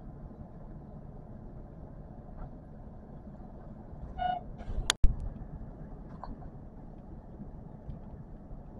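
Electric train running between stations, a steady low rumble of wheels and motors. About four seconds in there is a brief pitched tone, then a sharp, loud crack a moment later.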